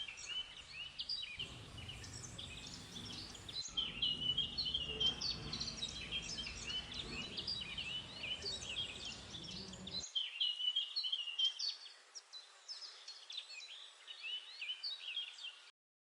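Many birds chirping and singing in a dense, overlapping chorus of short high calls. A low background rumble runs beneath it and cuts off abruptly about ten seconds in, leaving the birdsong alone.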